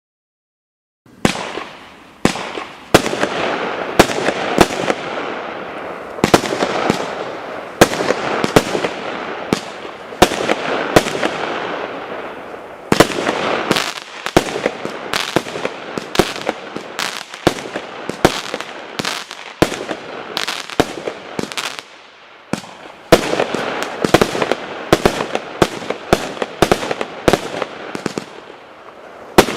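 Hallmark Fireworks 'Go Crazy' firework going off: sharp bangs, several a second, over continuous crackling. It starts about a second in and has a brief lull about three quarters of the way through.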